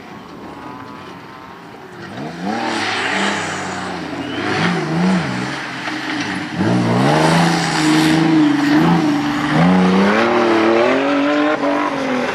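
Engines of off-road race cars revving hard as they climb past close by, the pitch repeatedly rising and dropping with throttle and gear changes. They grow louder about two seconds in, and louder again around the middle.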